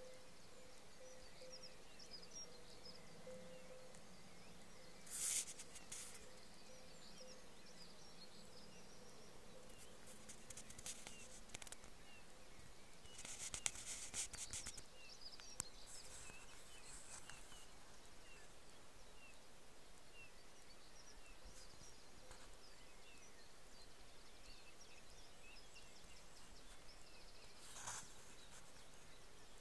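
Quiet countryside ambience with faint, scattered chirps of small birds, broken by three brief rustles as the phone brushes among bare twigs.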